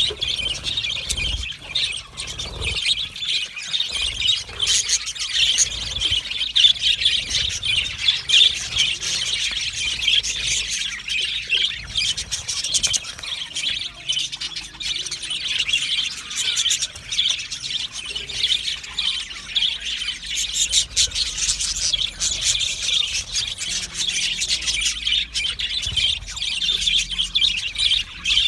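Budgerigars chattering without a break: a dense, continuous stream of rapid high chirps, warbles and squawks.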